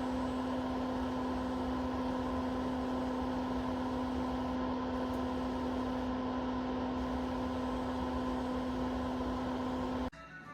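Comfort Zone CZFP1 electric mini fireplace heater's fan running steadily, a low hum over an even whoosh of air, stopping abruptly near the end.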